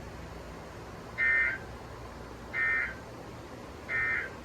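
Three short bursts of Emergency Alert System SAME digital data tones from a weather radio, each about half a second long and spaced about 1.4 s apart. Bursts this short fit the end-of-message code. A faint steady hum runs underneath.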